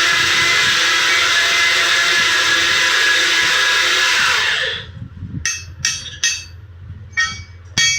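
An electric workshop machine runs with a steady high whine, then spins down and stops about four and a half seconds in. Then come five sharp hammer blows on metal, each ringing briefly, as a motorcycle crankshaft's crank pin is driven in.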